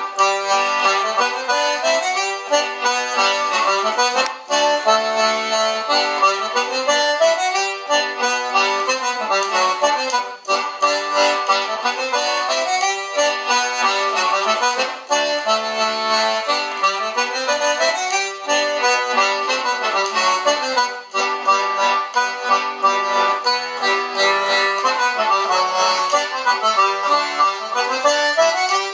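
Accordion playing a Morris dance tune in G major: a continuous run of melody notes in a steady rhythm.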